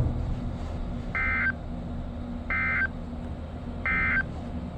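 Emergency Alert System SAME data tones: three short, identical warbling bursts about 1.4 s apart, the end-of-message code that closes the warning, over a steady low hum.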